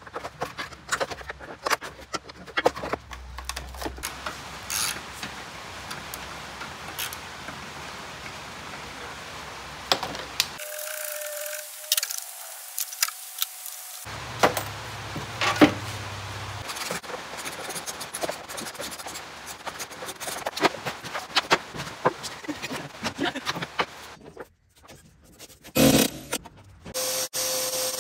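Engine wiring harness being unplugged and pulled by hand: a busy string of clicks, rattles and rubbing from plastic connectors, wires and hand tools. The sound changes abruptly several times.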